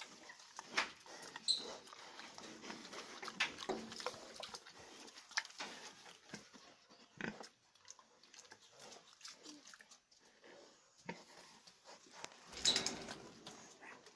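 Short, scattered animal noises with clicks and knocks, loudest in a burst near the end.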